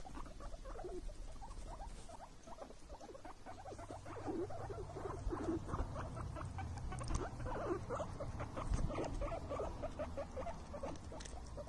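Small young animals squeaking: many short, faint squeaks in quick succession over a low steady hum.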